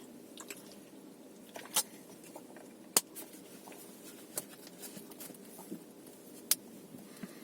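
Inside a moving car in the rain: a steady low cabin hum with scattered, irregular sharp ticks of raindrops striking the roof and windshield.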